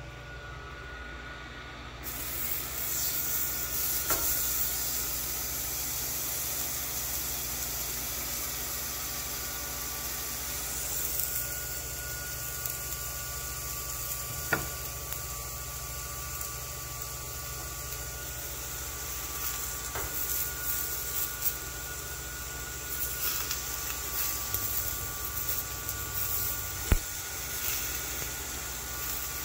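A 16 oz NY strip steak, and later hot dogs, sizzling on a preheated Power XL smokeless electric grill at 450 degrees. The sizzle starts suddenly about two seconds in as the steak goes onto the grill plate, then holds steady over a faint hum. There are a few sharp clicks of a metal fork against the plate and grill.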